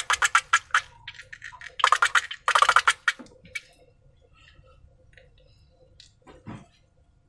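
Slime being squished by hand, a fast run of sticky, wet clicks that stops about a second in, followed by two short bursts of clicking around two and three seconds in, then only faint scattered crackles.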